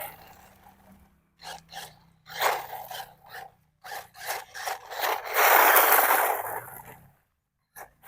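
Gravel scraping and crunching under the tyres of a brushless RC off-road car, in irregular bursts with a longer, louder stretch past the middle.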